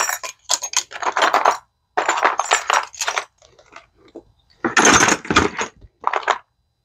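Metal hand tools clattering and clinking as they are picked out of a tray and set into a plastic toolbox, in several bursts, the loudest about five seconds in.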